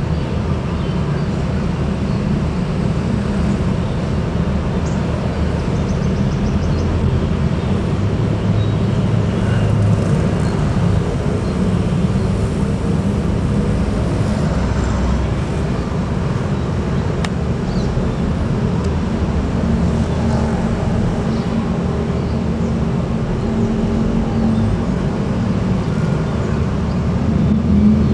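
A bus's diesel engine running steadily at idle, a low, even hum.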